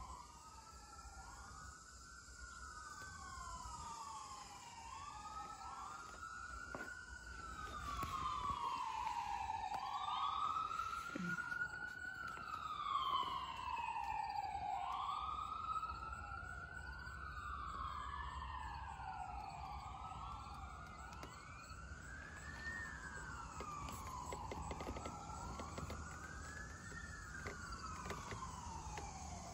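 Emergency vehicle sirens wailing, at least two overlapping, each rising and falling in pitch every few seconds, louder around the middle.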